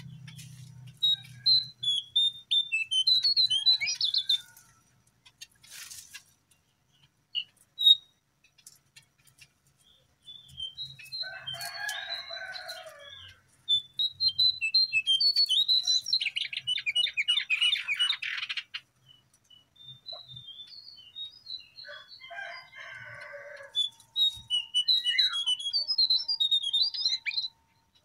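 Lesser shortwing (jongkangan, cingcoang coklat) singing: repeated bursts of high, quick chirping phrases with short pauses between them. A fast rattling trill comes about two-thirds of the way through, and lower, rougher notes are heard twice.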